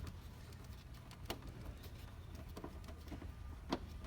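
Faint scattered clicks and light taps of a screwdriver and small screws on an ice maker's plastic housing as the lid screws are taken out, the two sharpest clicks about a second in and near the end, over a steady low hum.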